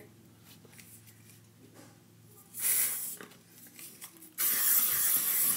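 Axe aerosol body spray hissing out of its can in two sprays, a short half-second spray and then a longer one lasting over a second, used as an air freshener to cover a bad smell.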